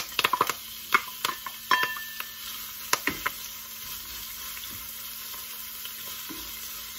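Chopped onions landing in hot oil in a cast iron wok and sizzling steadily. A wooden spatula knocks and clinks against a steel bowl and the pan several times in the first three seconds or so, a few of the knocks ringing briefly; after that only the sizzle goes on.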